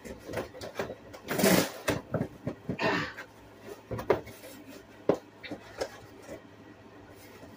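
Large cardboard shipping box being gripped and worked at by hand while someone tries to open it: a run of knocks and clicks, with a couple of longer rustles in the first few seconds and fewer knocks near the end.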